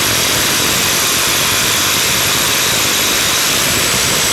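Power drill running steadily and loudly, boring drainage holes at a house.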